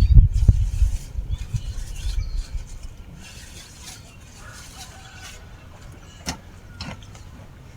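A low rumble that dies away after about a second, then quiet outdoor background with faint bird chirps and two sharp clicks near the end.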